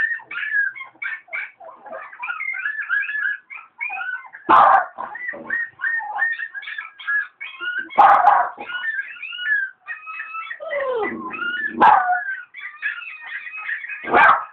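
A Lhasa Apso dog whining and yipping in a rapid, high-pitched stream, with four loud barks spread through it.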